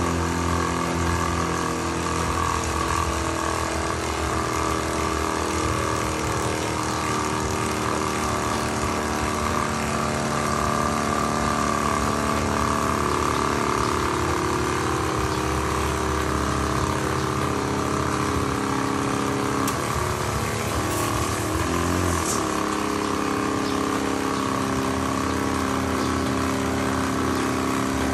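Small electric air pump running with a steady, even hum while it inflates a flat e-bike tyre.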